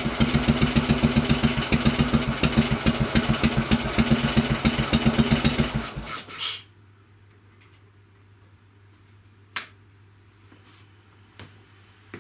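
Horex Regina single-cylinder four-stroke engine idling with an even beat of about six pulses a second, then stopping about six seconds in and dying away. A single sharp click follows a few seconds later.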